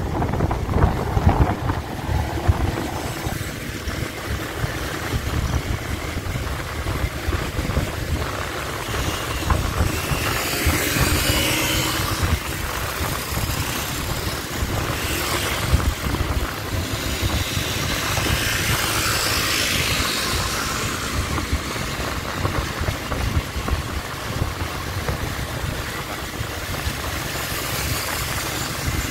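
Vehicle ride in city traffic: steady engine and road noise with a low rumble throughout. A louder hiss swells up and passes about ten, fifteen and twenty seconds in.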